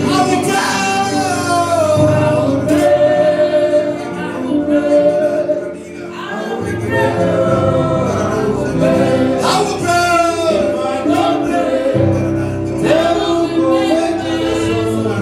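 Gospel worship music: several voices singing a melody over a bass line.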